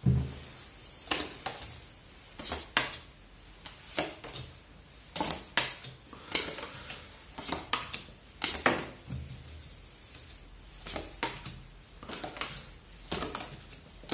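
Tarot cards dealt one at a time from the deck and laid down on a tabletop: a string of short, sharp card snaps and taps, roughly one a second, irregularly spaced.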